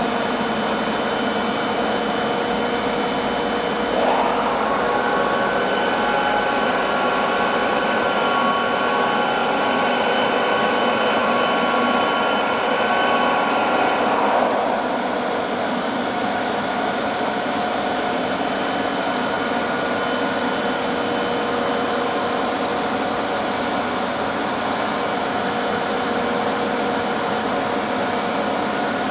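Škoda W200 CNC horizontal boring mill running, with a steady machine hum and hiss. About four seconds in, a louder whine from one of its drives joins in and stops again about ten seconds later.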